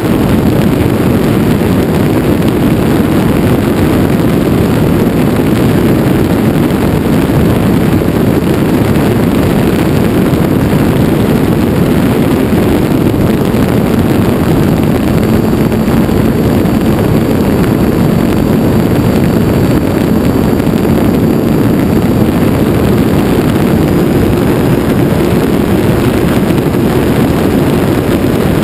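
Light aircraft in flight, heard from a camera mounted under it: a loud, steady rush of airflow over the microphone mixed with the drone of the engine, unchanging throughout.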